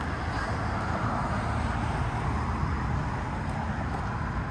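Steady road traffic noise, a continuous rumble and hiss of passing vehicles with no distinct events.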